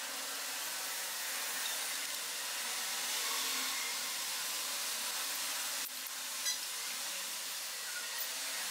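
Steady hiss, with a single light click about six seconds in.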